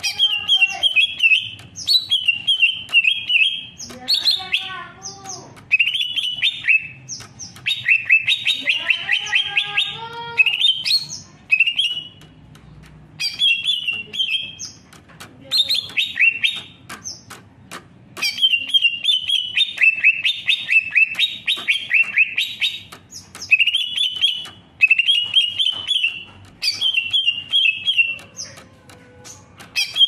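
Greater green leafbird singing: fast, rich chattering phrases of a second or two, repeated with short pauses, twice joined by lower, wavering notes.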